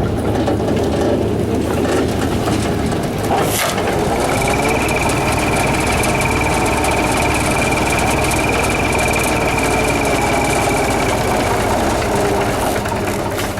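Tractor engine running steadily under load, with a thin high whine from about four seconds in until near the end and a single click just before the whine starts.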